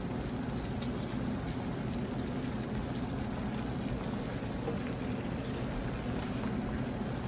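A white wine and chicken broth pan sauce simmering in the pan, with a steady, even bubbling.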